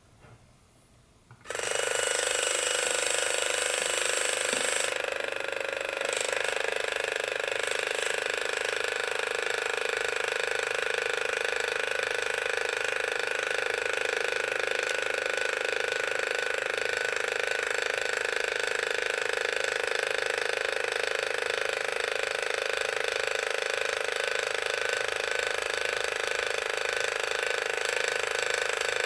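Progressive Automation PA-14 linear actuator (8-inch stroke, 12 V) starting about a second and a half in and running steadily as it retracts, its small geared motor whirring. It makes the knocking noise that marks this unit as faulty, unlike a good actuator of the same series.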